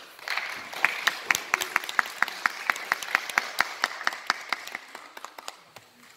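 Audience applauding, with one nearby pair of hands clapping loudly and evenly at about four claps a second; the applause thins out and fades near the end.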